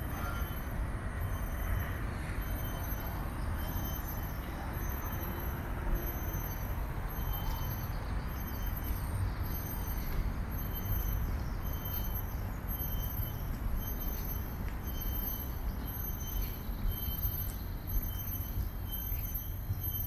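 Steady low rumble of distant road traffic, with a faint high chirp repeating about once a second.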